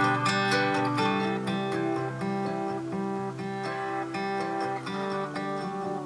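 Acoustic guitar music played through a homemade BC547 one-transistor preamp with a classic tone-control filter, feeding a small amplifier. The tone control is turned toward treble, so the sound is sharp, with hardly any deep bass.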